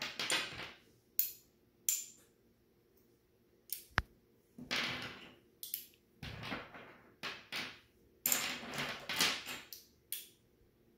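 Magnetic building sticks clicking as they snap together and pull apart, and clattering on a wooden tabletop, in irregular clicks and short rattles, with one sharp click about four seconds in.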